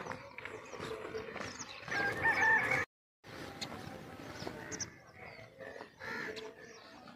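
A rooster crowing about two seconds in, its call cut off abruptly, with small birds chirping.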